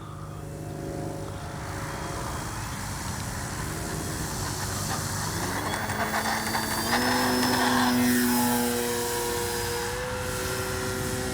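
Electric RC plane's brushless outrunner motor and 13-inch propeller throttling up for takeoff. The whine rises in pitch between about five and seven seconds in and is loudest about eight seconds in, then holds steady as the plane climbs away.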